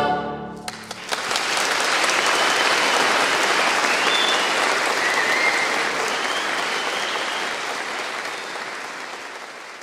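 The last sung choir chord dies away, and about a second in an audience starts applauding. The clapping holds steady and then gradually fades near the end.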